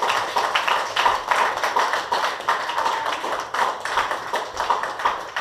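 Small audience clapping, many quick individual claps overlapping.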